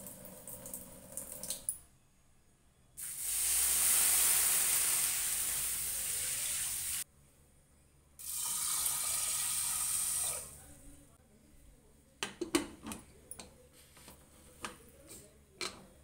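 Water running from a kitchen tap in two stretches, about four seconds and then two, as roasted green gram is washed for pressure cooking. A few sharp clicks and knocks follow near the end.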